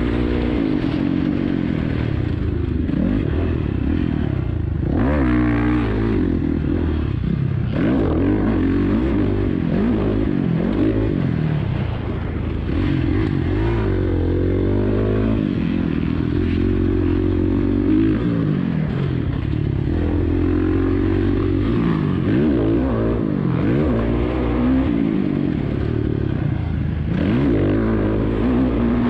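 Motocross dirt bike engine heard close up from a camera mounted on the bike, its pitch rising and falling again and again as the rider opens and closes the throttle and shifts around the track.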